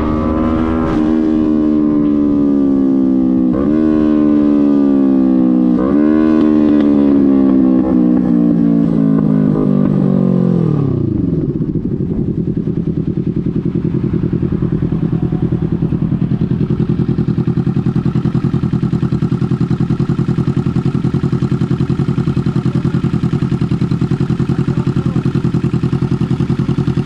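Sport bike engine heard from the saddle, slowing down with its pitch falling, jumping back up briefly three times as it is downshifted, with wind noise over it. About eleven seconds in it drops to a steady idle at a stop and stays there.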